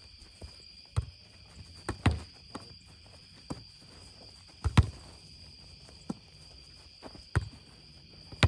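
Sharp thuds at irregular intervals, about one to two a second, the loudest about halfway through: a ball slapped by hand and bouncing off the board in a boardball rally. Behind them runs a steady high chirring of crickets.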